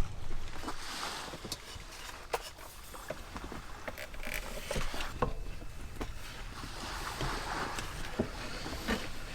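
Sea waves washing onto the beach, swelling and fading slowly, with scattered short sharp clicks over them.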